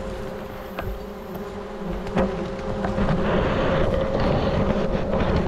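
A swarm of wild bees buzzing in a steady hum, with scattered sharp snaps. A louder hiss builds about three seconds in.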